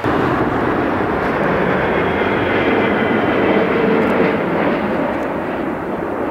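Airbus A380's Rolls-Royce Trent 900 jet engines running as the airliner rolls along the runway after landing: a steady rush of engine noise with faint high whining tones, growing to its loudest about four seconds in, then slowly easing.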